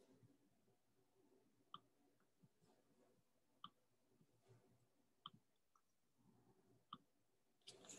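Near silence: faint room tone with four soft clicks, about one every one and a half to two seconds, and a soft rustle starting just before the end.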